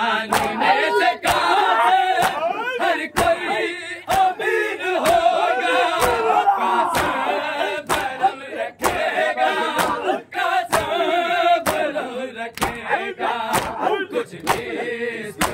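A crowd of male mourners chanting a noha together, with rhythmic matam chest-beating strikes at about two a second.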